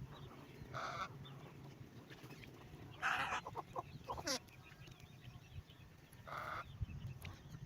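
Fowl squawking: three short harsh calls, with a quick run of clucks after the second, over a steady low hum.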